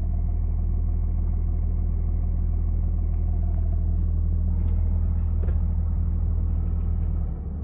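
Dodge Ram's Cummins inline-six turbo-diesel idling steadily, heard from inside the cab, with a deep, even rumble. The level drops slightly near the end.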